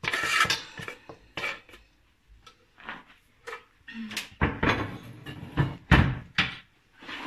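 Kitchen handling sounds: a knife scraping chopped onion off a wooden cutting board into a stainless steel bowl, then a run of knocks and clatters of a metal spoon and the steel bowl, louder and denser in the second half.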